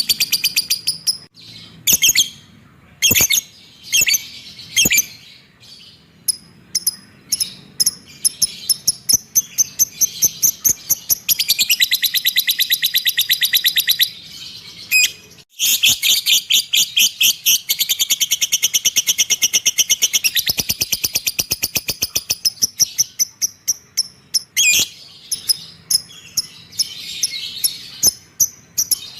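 Pet bird calling in rapid, high, repeated chirps. Two long, fast chattering runs of several seconds each come in the middle.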